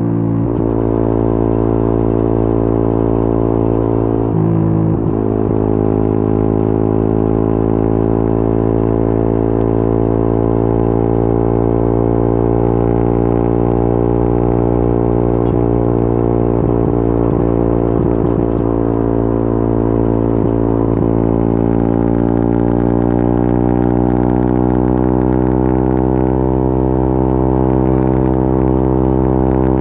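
Yamaha Y15ZR's 150 cc single-cylinder four-stroke engine running at a steady cruising speed, a constant drone with a brief dip and pitch change about four to five seconds in and a slow climb in pitch near the end, with wind noise.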